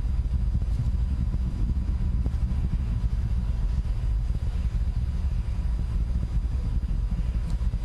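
Deep, steady rumble of a Falcon 9 rocket's first-stage engines during ascent.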